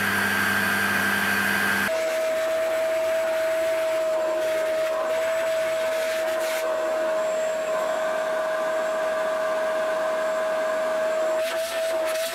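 Milling machine's end mill cutting an aluminium block under coolant spray, steady with a held high tone. About two seconds in it gives way to a steady motor whine with a single held tone.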